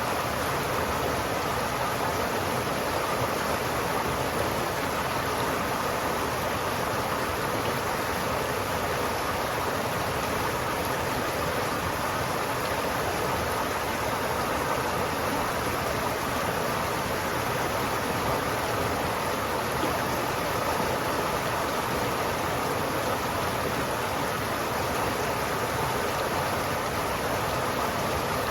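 River water flowing steadily, a constant rushing with no breaks.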